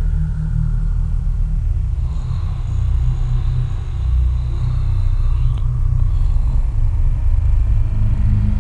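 Deep, steady electronic drone rumbling in the low bass, with a faint thin high tone over it from about two seconds in until just past the middle.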